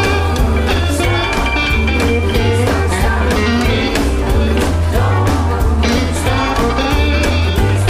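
Instrumental passage of a rock record with a steady drum beat and a bass line.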